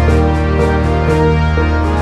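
Theme music with a sustained low bass note, shifting chords and a steady beat of light percussion ticks, about four a second.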